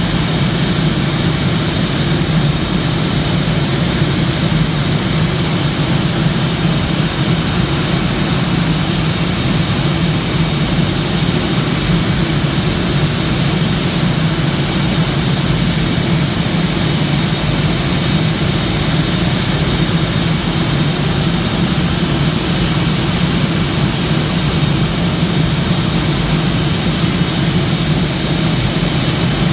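Blue Angels F/A-18's twin jet engines idling on the ramp: a loud, steady rumble with a constant high-pitched whine over it.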